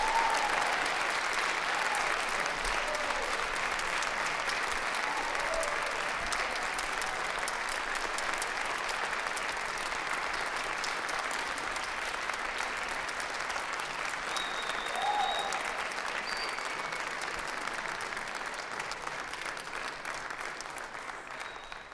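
Audience applauding steadily, with a few brief shouts over the clapping, which slowly dies away near the end.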